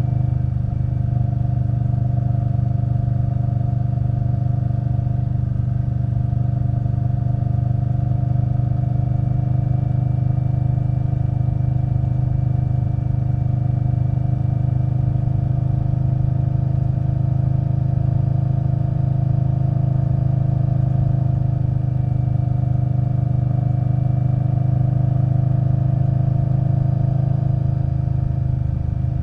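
2021 Indian Scout Bobber Twenty's liquid-cooled V-twin engine, fitted with a V&H Twin Slash exhaust, running at an even engine speed while the bike cruises.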